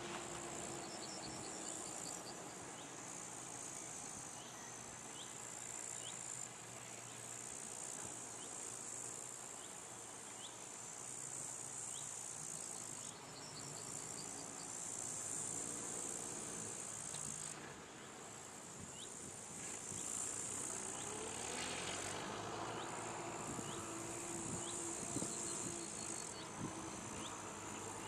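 Meadow insects stridulating in high-pitched bouts of a few seconds each, stopping and starting, with short repeated chirps. A tractor engine runs faintly underneath, its pitch rising and falling now and then as the loader works.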